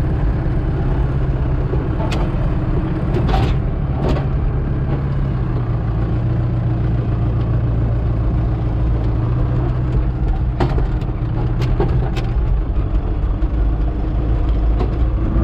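Tractor engine running steadily under load while driving a grass topper across a paddock, with a few light ticks over the engine.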